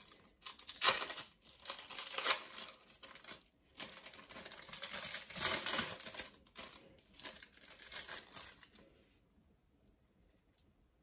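Plastic cheese-slice packaging crinkling and rustling in irregular bursts as a processed cheese slice is peeled out of its film wrapper; the crackling stops near the end.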